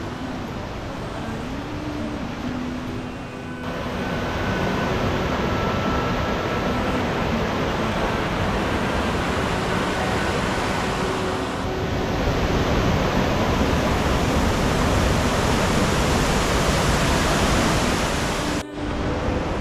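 Waterfall rushing: a steady, dense roar of falling water, getting louder about four seconds in and breaking off briefly near the end.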